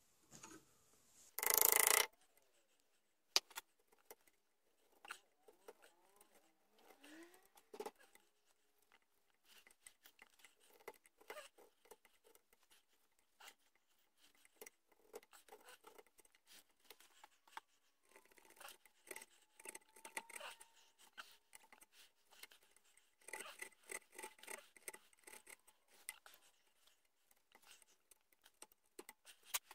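Hand chisel and gouge carving the wooden stock around a longrifle's trigger plate inlet: faint, irregular small clicks, light taps and scraping cuts, thickest in a run near the end. A brief loud noise comes about two seconds in.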